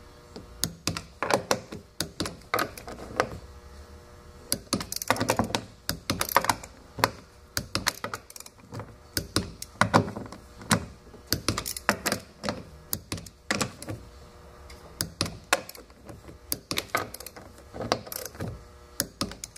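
Ratchet wrench with a socket clicking in short back-and-forth strokes as the bolts of a fuel tank's sending-unit flange ring are tightened, the clicks coming in irregular bursts with brief pauses between strokes and bolts.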